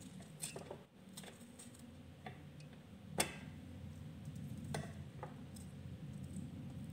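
A knife cutting a cucumber held in the hand, with a few scattered light clicks of the blade and of cut pieces dropping onto a stainless-steel plate; one sharper click about three seconds in. A low steady hum lies underneath.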